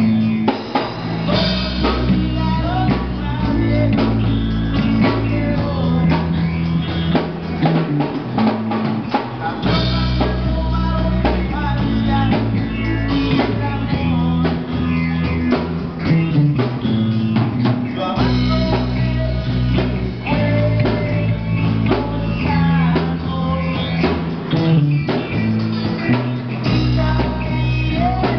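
A live rock band playing: electric guitar and a drum kit over heavy low notes, with a singer's voice at times.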